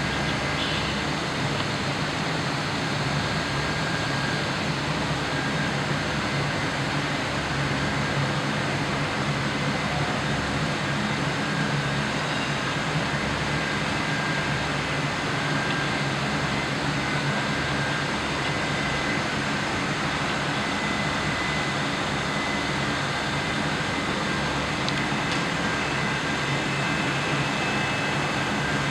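Air-source heat pump running: a steady hum with a low drone and faint high whines.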